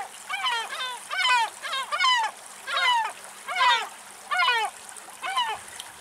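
Gulls calling: a series of short, harsh calls, quick-fire in the first two seconds and then more spaced out.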